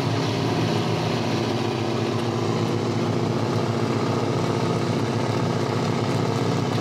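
Purse seiner's diesel engine running steadily under way, a constant low drone with an even tone.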